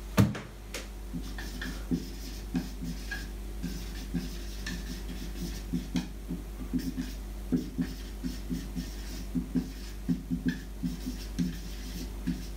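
Dry-erase marker squeaking and scratching across a whiteboard in short, irregular strokes as words are written, after a single sharp knock at the very start.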